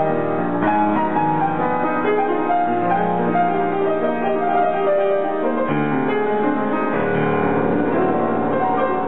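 Grand piano being played: held notes and chords, with melody notes moving above them.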